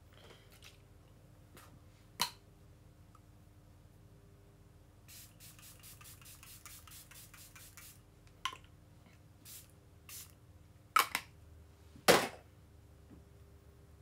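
Handheld pump spray bottle misting the face in short spritzes at the finishing step of a makeup routine. Several separate sprays come over the first half, then a quick run of rapid strokes about five seconds in, at around eight a second. The biggest, longest spray comes near the end.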